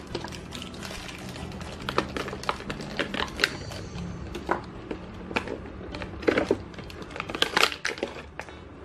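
Clear plastic toy packet crinkling and crackling in the hands as it is handled and pulled open, in irregular sharp bursts.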